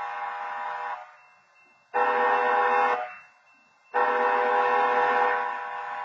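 Railroad crossing horn sounding the crossing pattern. A long blast ends about a second in, a short blast follows, and another long blast starts about four seconds in: the close of a long-long-short-long signal.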